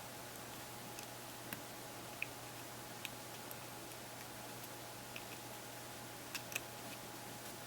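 Scattered faint clicks and taps of small parts and tools being handled while a Samsung Galaxy Player 5.0 is put back together, a few seconds apart, over a steady hiss and low hum.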